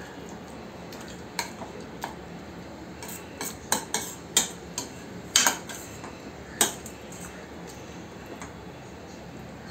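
Steel spoon stirring and mashing baigan bharta in a stainless steel kadai, scraping through the mash, with sharp clinks of the spoon against the pan several times between about one and seven seconds in.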